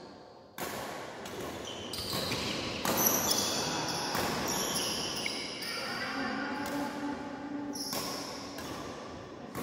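Badminton rally: rackets strike the shuttlecock with sharp hits about once a second, mixed with players' footwork on the court floor, echoing in a large hall.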